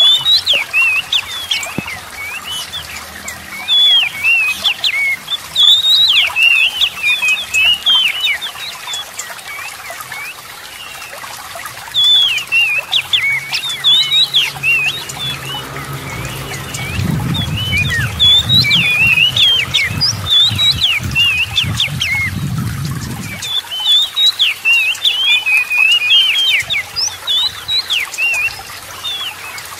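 Oriental magpie-robin singing a fast, varied song of sweeping whistles and chirps in quick phrases, with a short lull about a third of the way in, over trickling water. A low rumble runs for several seconds past the middle.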